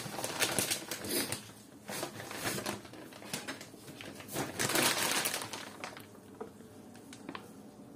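Paper flour packages rustling and crinkling as they are handled, loudest in a burst about halfway through.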